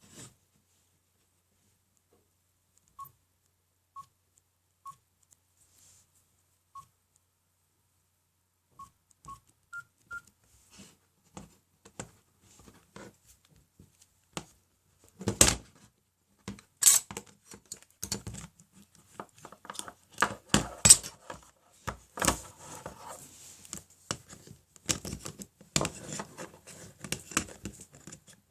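Nokia N97 Mini giving short electronic key beeps, single and a second or two apart, ending with two quick higher beeps. Then comes a long run of sharp clicks, taps and knocks as the phone is handled, louder and denser in the second half.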